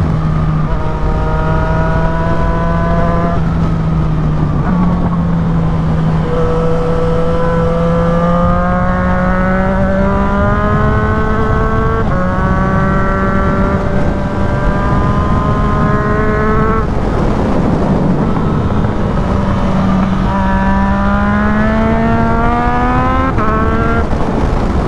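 Yamaha MT-09's three-cylinder engine with a full Black Widow exhaust, pulling hard uphill: its note rises through each gear and drops at quick, clutchless quickshifter upshifts about half a dozen times, with a brief ease-off about two-thirds through. Heavy wind rush on the helmet microphone runs underneath.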